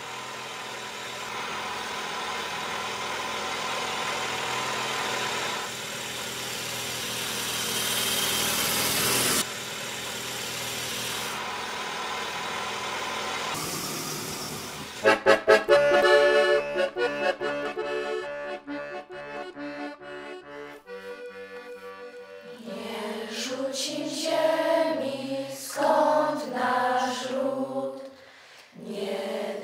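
A vintage car driving past, its engine and road noise swelling and then cutting off about nine seconds in. From about halfway an accordion plays a tune, and near the end a group of children sings together.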